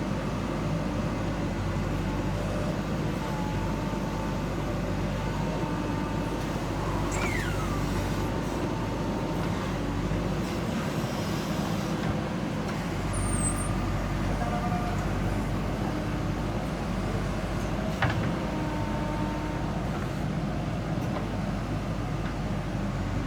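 Diesel engine of a JCB backhoe loader running steadily as it works loading soil, with faint high whines over the drone. A short falling squeal comes about seven seconds in and a single sharp knock about eighteen seconds in.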